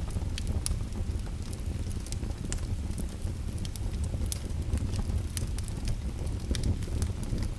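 Fire crackling: irregular sharp snaps and pops scattered over a low, steady rumble.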